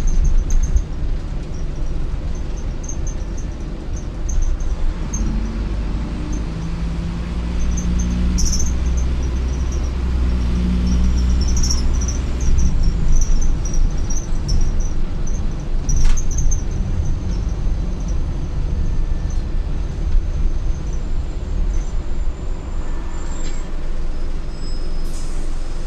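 Cabin noise inside an Optare Solo M950 single-deck bus: steady engine and road rumble, the engine note rising for a few seconds in the middle, with light high squeaks and clicks from the interior and a short hiss near the end.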